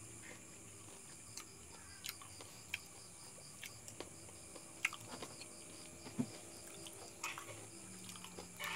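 Faint mouth sounds of a person chewing and sucking on a raw lemon: scattered wet clicks and smacks, with a couple of louder ones about five and six seconds in.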